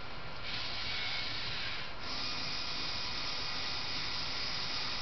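Lego NXT robot arm servo motors whirring with a steady high hiss. The hiss grows louder about half a second in and dips briefly near two seconds before carrying on.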